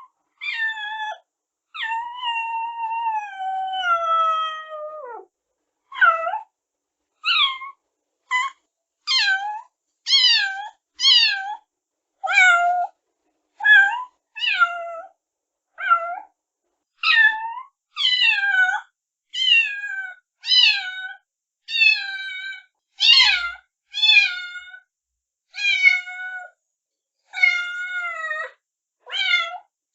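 Newborn kitten crying: one long, drawn-out mew falling in pitch near the start, then a run of short, high-pitched mews about one a second, each sliding down in pitch.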